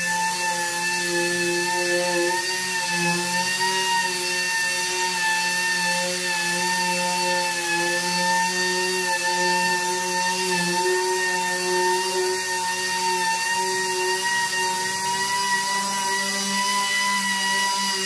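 Pneumatic random-orbital palm sander running steadily with a high whine, its pitch wavering slightly, as its fine-grit Super Buflex foam disc sands a painted truck tailgate panel.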